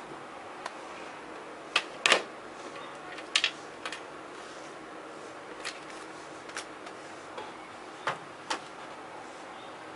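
Scattered sharp clicks and taps, about ten in all, the loudest a close pair about two seconds in, over a steady faint hiss.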